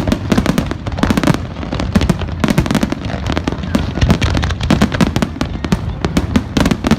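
Fireworks display going off in a dense barrage: rapid overlapping bangs, several a second, with no let-up.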